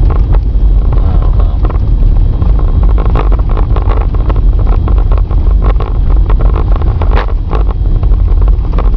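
Car driving along: a loud, steady low rumble of road and wind noise buffeting the camcorder's microphone, with scattered small knocks and bumps.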